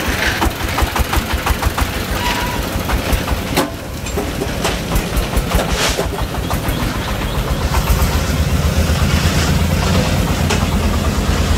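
Three-wheeled công nông truck's single-cylinder diesel engine chugging as the truck drives up the alley, a fast even beat of exhaust pulses that turns into a steadier, heavier drone about two-thirds of the way in.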